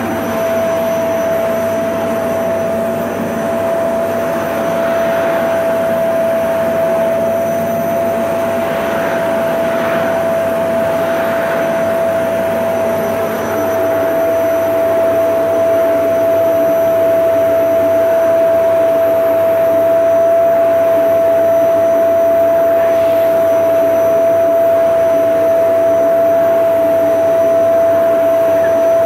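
Vacuum cleaner running steadily: a constant high motor whine over a rushing of air, getting a little louder about halfway through.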